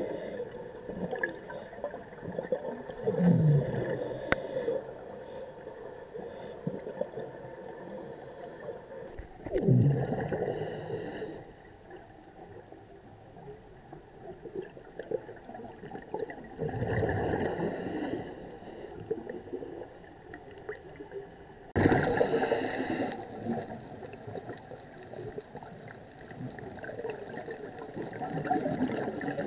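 Scuba diver breathing through a regulator underwater: slow breaths about every six or seven seconds, each a hiss with a bubbling gurgle, over a low steady underwater hum.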